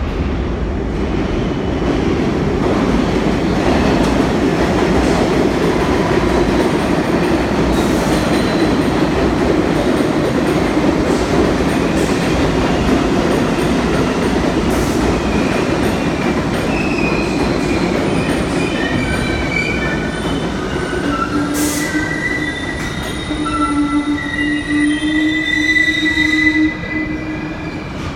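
New York City subway train running loudly into the station, then its wheels and brakes squealing in several high tones as it slows, the squeal cutting off suddenly near the end as it stops.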